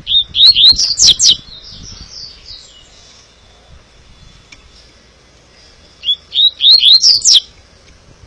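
Caged double-collared seedeater (coleiro) singing its 'clássica' song: two short, loud phrases of quick rising whistled notes, one at the start and another about six seconds in.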